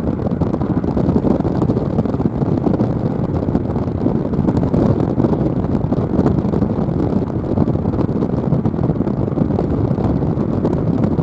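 Steady, loud rushing noise of wind buffeting the microphone over car noise, with no siren tone heard yet.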